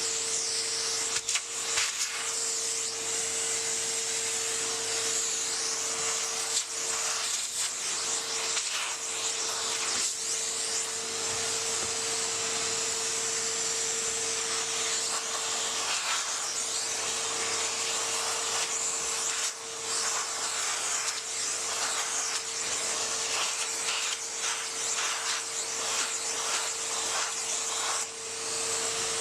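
Vacuum cleaner running steadily, its motor holding one even whine over a hiss, with a few short knocks as it is worked.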